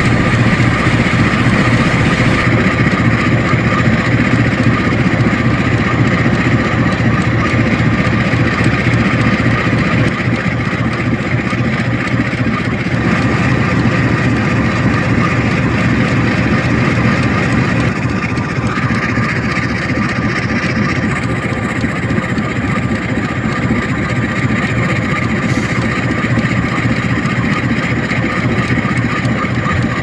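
Diesel locomotive engines idling steadily.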